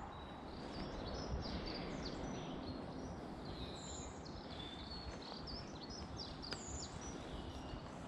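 Several small songbirds chirping and singing in short, high phrases, over steady background noise. There is one sharp click about six and a half seconds in.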